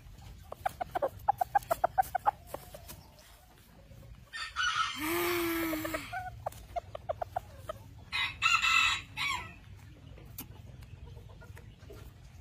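Japanese bantam chickens calling: a quick run of clucks, then a rooster crowing for nearly two seconds, then a shorter harsh call a few seconds later.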